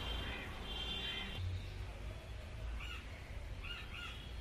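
Birds calling: two harsh calls in the first second and a half, then three short calls in the second half, over a steady low rumble.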